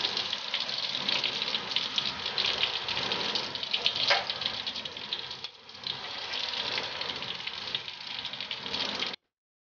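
Breaded stuffed olives deep-frying in hot oil in a wok: a steady sizzle full of fine crackles. It dips briefly a little past halfway and stops abruptly near the end.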